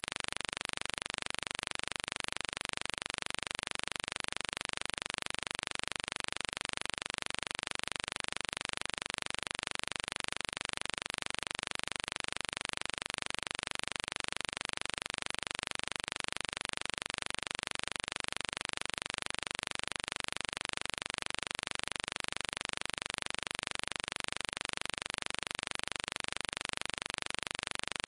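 Steady, even hiss with no other events in it.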